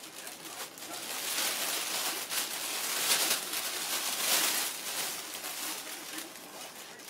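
Thin plastic shopping bag rustling and crinkling as a cat moves inside it. It swells from about a second in, is loudest around the middle, and eases off near the end.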